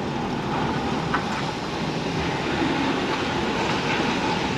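Heavy goods vehicle's diesel engine and road noise heard inside the cab, a steady rumble as the lorry moves slowly forward.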